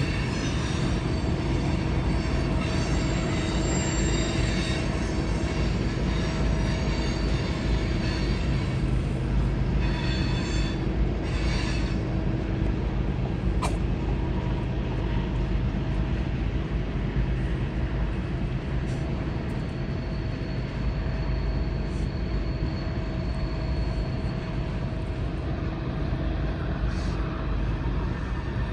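Union Pacific freight train led by an EMD SD70ACe diesel locomotive running steadily, a continuous engine drone over a low rumble of rail noise.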